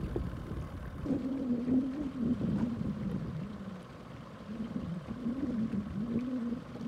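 Small outboard motor on an inflatable dinghy running at low throttle, its hum wavering up and down in pitch and easing off briefly about four seconds in.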